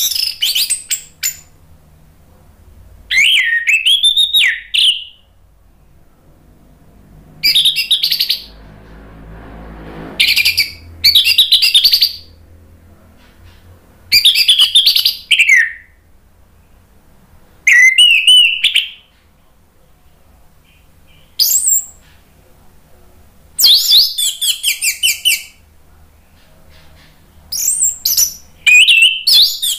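Orange-headed thrush singing: loud phrases of rapid, varied whistled notes, each one to two seconds long, repeated every few seconds.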